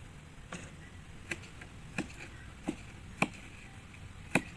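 Knife chopping spring onions on a cutting board: about six separate, unhurried strokes, each a sharp knock on the board.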